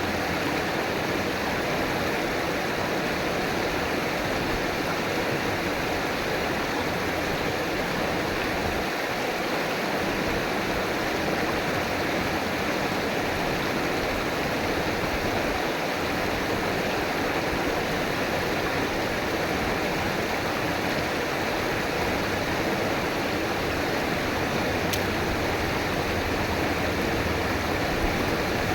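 River water flowing and rushing over rocks in a steady, unbroken wash of noise.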